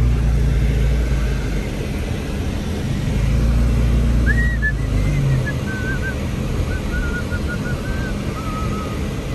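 A car driving, heard from inside the cabin: a steady low engine hum and road noise that swell about a third of the way in. Over it, a faint wavering whistle-like tone drifts downward in small steps through the second half.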